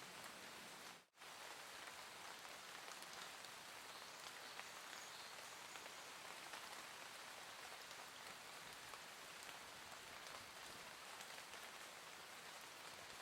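Soft, steady rain, a fine even patter that is faint throughout. The sound cuts out for a split second about a second in, then carries on unchanged.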